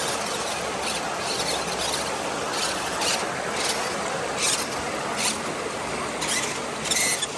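Sherp amphibious vehicle running as it floats in the water: a steady rushing noise, with short high-pitched squeaks or splashes recurring every half second to a second.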